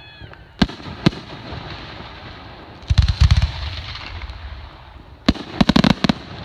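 Aerial firework shells bursting: two single bangs in the first second, then a quick rapid-fire cluster of bangs about three seconds in and another cluster near the end.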